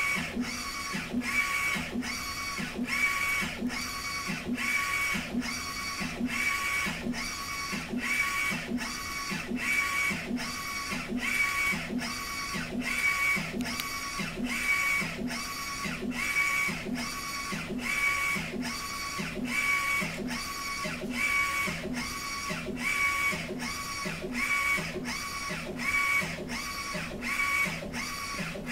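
Direct-to-garment inkjet printer printing onto a T-shirt. Its print-head carriage shuttles back and forth in an even rhythm of about one and a half passes a second, with a whir and a clack at each pass.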